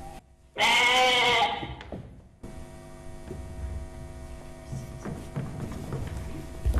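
A child's drawn-out vocal cry, one sustained sound lasting about a second whose pitch rises and then falls. It is followed by a steady electrical hum.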